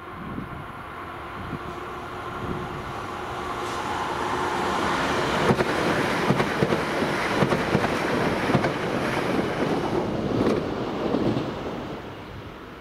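Siemens Desiro electric multiple unit passing close by on the running line, its rolling noise building up, peaking with a run of sharp clicks as the wheels cross rail joints and points, then fading away near the end.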